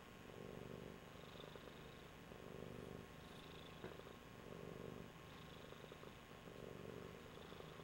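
A tabby cat purring softly, the purr swelling and fading with each breath about once every two seconds. A faint click about four seconds in.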